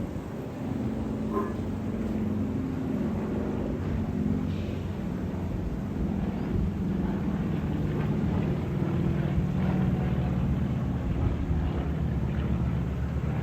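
Aircraft engine drone from a plane circling overhead: a steady hum of several tones that slowly drift in pitch, over a low rumble.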